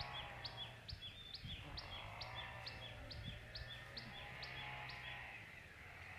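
Faint outdoor birdsong: a bird repeating a short, high call about twice a second that fades out near the end, with softer chirping below it.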